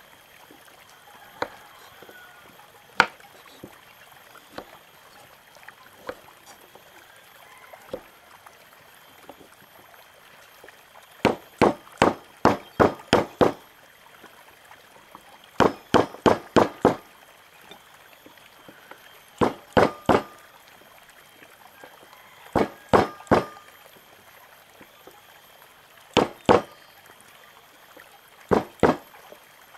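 Fresh ginger root being smashed on a wooden cutting board with the butt of a knife handle. The knocks come in quick runs of several strikes, six runs a few seconds apart, after a few single knife taps on the board in the first ten seconds.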